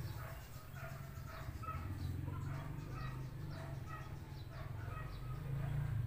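Birds calling with short, scattered chirps and clucks, over a steady low rumble.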